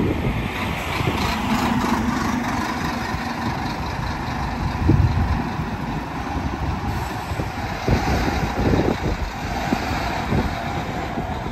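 City bus passing close by and pulling away down the street: engine and tyre noise with a low rumble.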